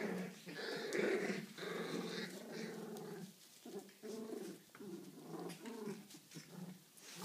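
Puppies growling in play as they wrestle, a run of short growls with brief gaps between them.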